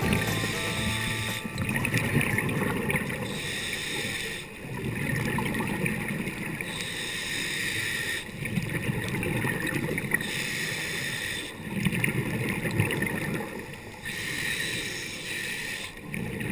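Scuba diver's regulator breathing underwater, muffled through a GoPro housing: a hissing inhale alternates with a bubbling exhale, one breath every three to four seconds.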